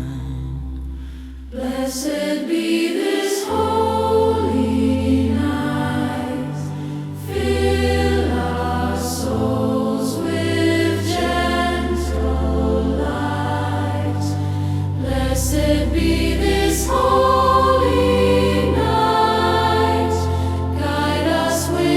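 Sacred choir music: voices singing wordless held lines over sustained low bass chords, with a soft regular beat.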